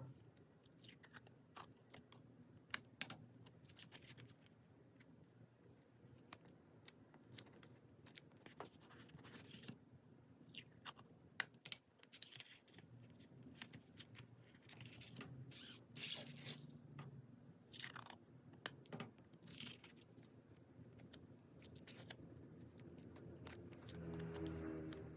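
Quiet packing sounds: packaging crinkling and rustling, with scattered clicks, taps and scrapes as items are handled. Near the end a low drone with several steady tones comes in.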